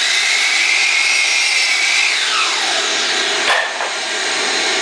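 DeWalt miter saw motor whining at full speed, then released and spinning down with a steeply falling whine about two seconds in. A single sharp knock about a second later, over steady machine noise.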